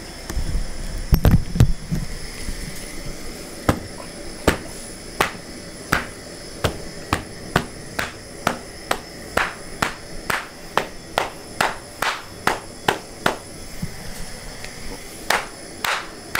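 A rubber flip-flop slapping a burning paper towel on a concrete floor again and again, about two sharp slaps a second, to beat out the flames. A few heavier low thumps come about a second in, and the slaps pause briefly near the end.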